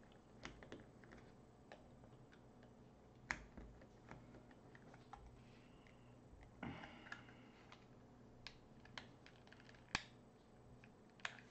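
Faint, scattered small clicks and taps of hands handling a craft decoration, over near silence, with a brief rustle about seven seconds in.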